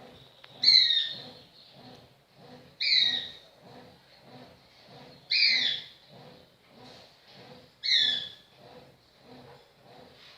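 A bird calling repeatedly: five short, falling calls, about one every two and a half seconds, over a faint low pulsing.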